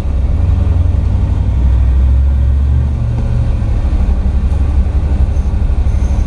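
Ford F-350 tow truck's engine running under way, a deep pulsing rumble heard from inside the cab, its note shifting about three seconds in.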